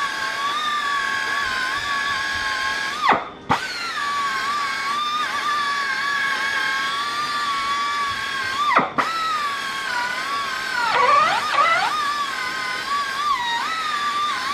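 Air-powered die grinder with a polishing buff whining steadily as it polishes an aluminium engine side cover. Its pitch wavers and sags as the buff is pressed to the metal. It stops briefly twice, a few seconds in and about two-thirds of the way through, and drops lower for a moment near the end.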